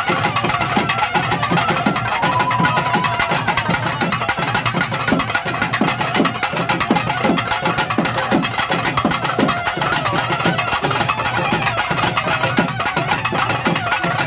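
Live festival music: loud, fast drumming with a sustained wavering melody line over it. Heavier low drum strokes come through in the middle.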